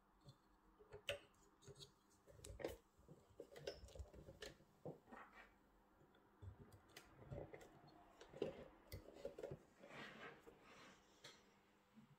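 Faint, irregular clicks and small plastic knocks as yellow multi-pin connectors are handled and pushed into the rear sockets of a VDO digital tachograph's metal housing.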